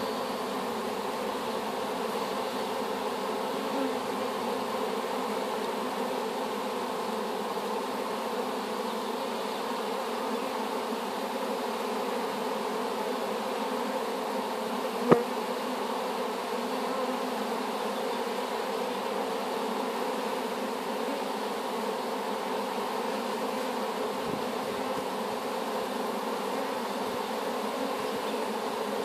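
Steady buzzing of many honeybees flying and crowding at the entrance of a wooden hive, a freshly hived swarm. A single sharp click about halfway through.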